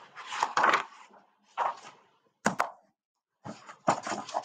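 Paper rustling and crinkling as a printed worksheet is handled and its page turned, in several short bursts with a couple of sharp clicks and a brief quiet gap past the middle.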